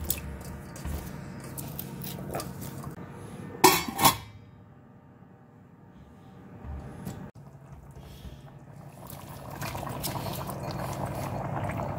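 Cooking in a stainless-steel stockpot. There are small clinks and splashes as carrot and potato pieces go into the simmering sauce, then two loud metal clanks about four seconds in as the lid is set on. Near the end comes a louder rustling splash as onion pieces are dropped in.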